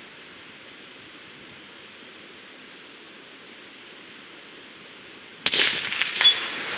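Steady hiss of rain, then about five and a half seconds in a single shot from a suppressed Remington 700 in .308 Winchester. The shot has an echoing tail, and two more sharp cracks follow within about a second.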